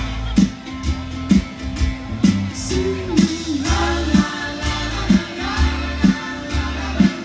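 Live band playing a slow love song: sung vocals over guitar and a steady drum beat of about two thumps a second.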